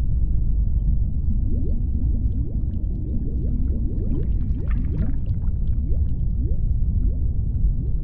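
Whale calls over a low rumble: a rapid series of short rising calls that begins about a second and a half in, with a few faint clicks mixed in around the middle.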